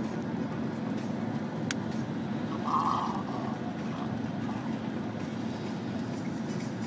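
Steady low rumble of a moving vehicle heard from inside the passenger cabin. A single click comes about a second and a half in, and a brief, louder mid-pitched sound about three seconds in.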